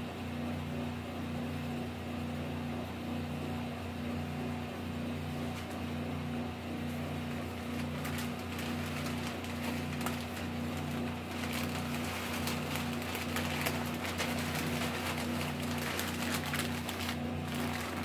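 Newspaper sheets rustling and crackling as they are folded, slid into a bird-cage tray and crumpled, busiest in the second half. Underneath runs a steady electrical hum with a low tone that pulses on and off about once a second.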